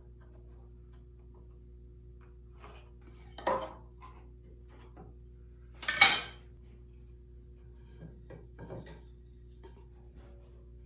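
Tools being handled and set down on a workbench: a knock about three and a half seconds in, a louder, sharper clatter about six seconds in, and a few soft taps near the end.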